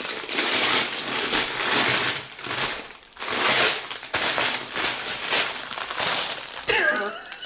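Gift packaging crinkling and rustling as it is torn open and pulled apart by hand, in uneven bursts with short pauses.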